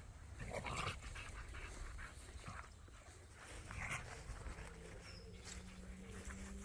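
Kangal dogs at play, panting, with short breathy bursts here and there. A faint steady hum comes in about two-thirds of the way through.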